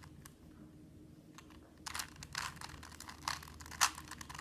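Plastic Rubik's Cube being turned quickly by hand: a rapid run of clicks and clacks from the layers, starting about two seconds in.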